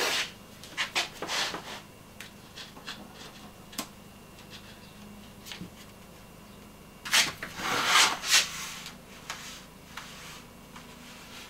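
Blue painter's tape being pulled off its roll in rasping rips, the longest about seven seconds in, with short clicks and rubbing as strips are pressed onto the wall.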